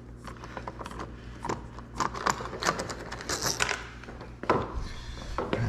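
Scattered small metallic clicks and taps of door lock hardware and screws being worked with a screwdriver.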